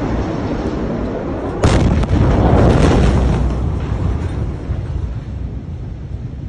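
Blast wave of a huge ammonium nitrate explosion reaching the phone: a sudden heavy bang about a second and a half in, then a deep rumble with several sharp cracks and rattles that slowly fades over the following seconds.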